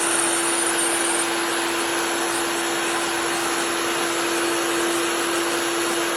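Electric wood chipper with a 15-amp motor running steadily: an even rush with a constant hum, no change in pitch and no separate cracks or knocks.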